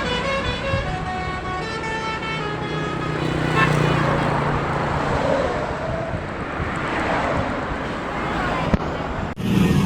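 Tour bus 'telolet' musical air horn playing a melody of stepped notes for the first few seconds, then the bus's engine and tyre noise as it passes.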